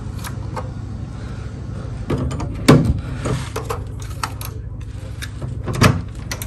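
Key-card lock and lever handle of a cabin door being worked: a series of clicks and knocks, the loudest about three seconds in and another near the end, over a steady low hum.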